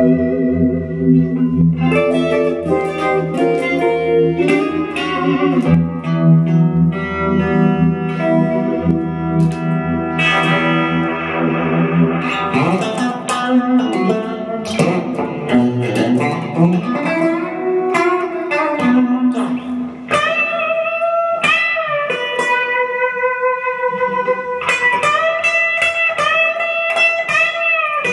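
Fender Classic Player '60s Stratocaster electric guitar played through a Fender Champion 100 amplifier. Fuller playing with low notes in the first half, then single-note lead lines with held notes and string bends.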